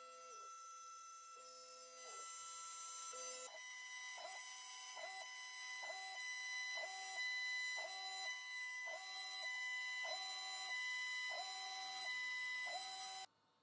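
CNC router machining a poplar desktop with a 1/4-inch end mill: a steady high spindle whine with drive-motor tones that rise and fall in pitch about once or twice a second as the gantry moves back and forth. It gets louder about two seconds in and cuts off suddenly near the end.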